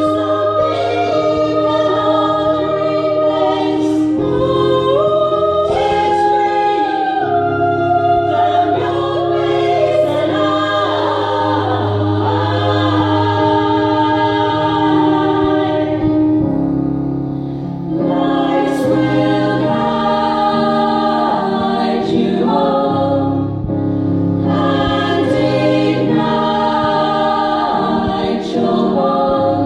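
Women's choir singing a song in harmony, over steady low accompanying tones, with a short dip in level about two thirds of the way through.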